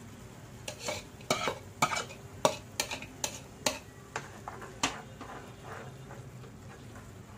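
A spatula scraping and knocking against a nonstick pan, stirring a thick radish-leaf paste into fried onion and tomato, over a light sizzle of the frying mix. About a dozen sharp strokes come in quick succession, then they grow softer and die away after about five seconds.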